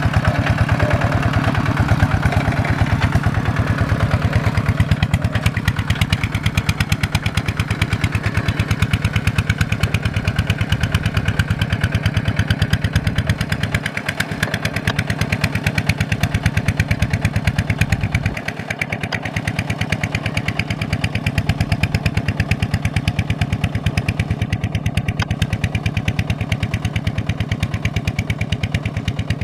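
Kubota single-cylinder horizontal diesel engine running steadily, its firing pulses coming in a fast even beat, with two brief dips in the second half.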